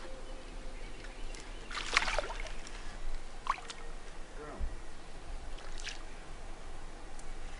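A hooked fish thrashing at the water's surface beside the boat: a few separate splashes, the loudest about two seconds in, with smaller ones about three and a half and six seconds in.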